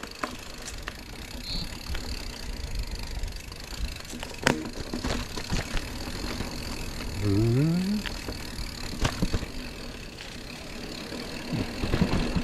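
Mountain bike rolling down a rough dirt trail: steady rumble of the tyres over the ground, with rattling from the bike and two sharp knocks about a third of the way in and again near three-quarters. Just past halfway comes a short rising vocal sound from a rider.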